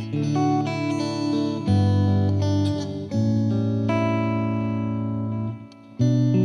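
Slow guitar music: sustained plucked notes and chords that change every second or two, with a short quieter gap near the end before the next chord.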